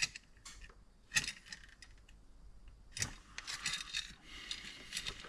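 Small hard clicks and light metallic clinks from handling tools and parts on a workbench: a few single knocks, then a spell of rattling clinks in the second half.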